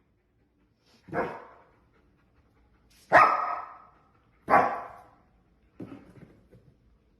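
A dog barking: three loud single barks about a second and a half apart, then a softer bark and some faint scuffling near the end.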